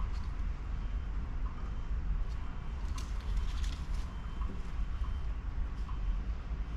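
A few light metallic clicks as a steel caliper is set against the work on a lathe, over a steady low rumble.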